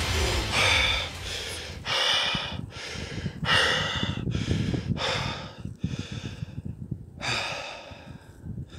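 A person breathing hard, a dozen or so heavy panting breaths in quick succession with a short pause a little past the middle.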